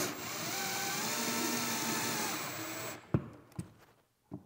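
Cordless drill/driver running for about three seconds as it drives a receptacle's mounting screw into the wall box, the motor pitch climbing as it spins up and dropping as it slows and stops. Two light clicks follow.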